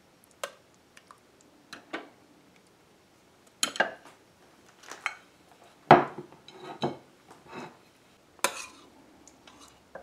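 Metal serving spoon clinking and scraping against a ceramic slow-cooker crock and plates as meatballs in sauce are dished up: a string of irregular clinks and knocks, the loudest about six seconds in.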